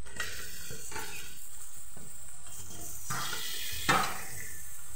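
Marinated chicken pieces being spooned from a steel bowl into a hot pot, sizzling as they go in, with spoon scraping on steel and a sharp metal clank about four seconds in.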